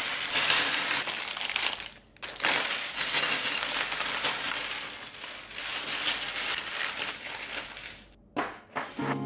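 Plastic parts bags crinkling and rustling as they are cut open, with loose plastic building-brick pieces clattering and clinking as they spill onto a table.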